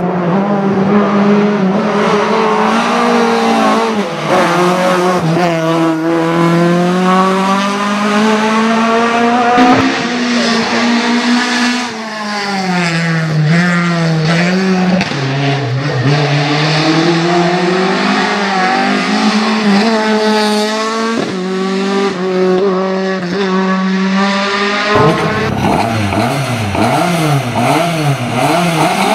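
Ford Escort Mk2's naturally aspirated 2.5-litre Cosworth YB four-cylinder racing engine at high revs. Its pitch climbs and drops again and again as it is driven hard through the gears. About 25 seconds in, it switches to quick, repeated throttle blips at a standstill.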